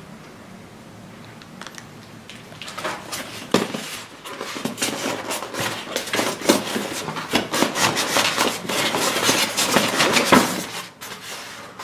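Hands handling packing material in the machine's box: rustling, scraping and light knocks. These are sparse at first and get busier and louder after about three seconds.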